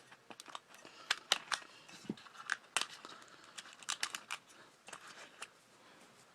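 Scattered clicks and crinkling crackles as the dust cap is cut and pulled away from an old car speaker's cone, exposing the voice coil. The noises fade out about five and a half seconds in.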